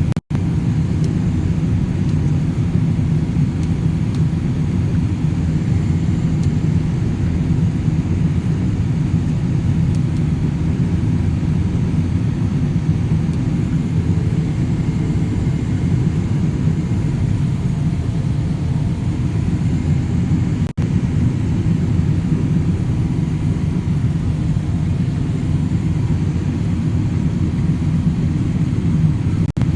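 Steady low rumble of a running vehicle engine, broken by two very short dropouts.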